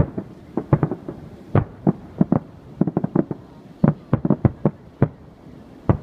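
A fireworks display: about twenty booming bangs from aerial shells bursting, coming irregularly and often several in quick succession.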